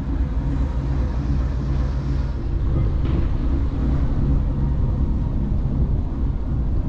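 A Dutch barge's engine running steadily, a low even hum while the boat cruises along the canal.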